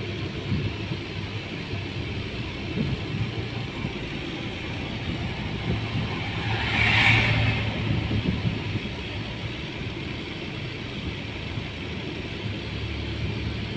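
Car driving, heard from inside the cabin: a steady low rumble of engine and road noise. About halfway through, a louder rushing sound swells up and fades away over a couple of seconds.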